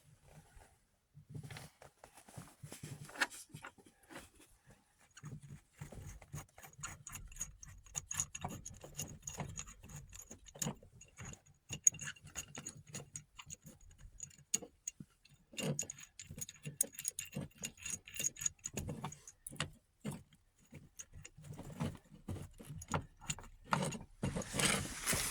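Small metal parts clinking, jangling and rattling in many quick, irregular clicks, with a faint metallic ring.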